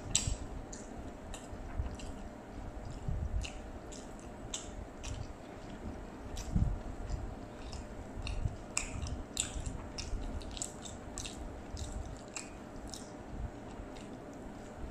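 Mouth sounds of eating soft fried rice vermicelli: wet chewing and smacking, with short sticky clicks at irregular intervals.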